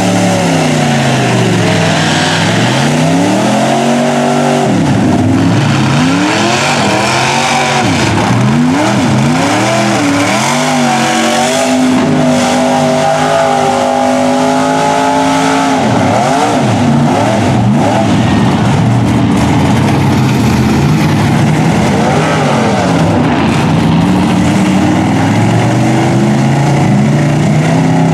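Lifted mud truck's engine revving hard, its pitch climbing and falling again and again as the big tires spin and churn through deep mud.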